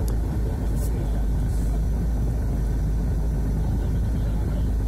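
Steady low engine and traffic rumble heard from inside a car idling in stopped traffic behind a city bus. A few short, faint high hisses come in the first two seconds.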